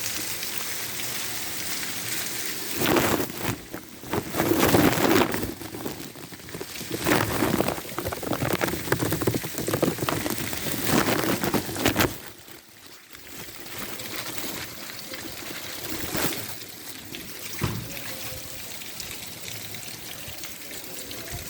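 Rain falling with water pouring and splashing. It is louder for several seconds in the middle, then drops suddenly to steadier, quieter rain.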